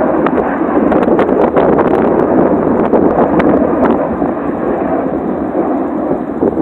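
Steady noise of a formation of jets flying over, mixed with wind on the microphone.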